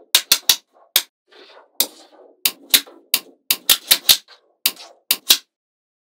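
Small neodymium magnetic balls snapping together with sharp clicks, about fifteen in an irregular series, some in quick runs, with soft rustling of the balls being handled between them.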